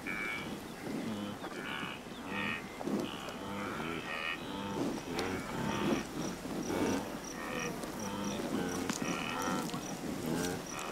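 Repeated short animal calls, one or two a second, with a faint high chirping that pulses about twice a second from about five seconds in.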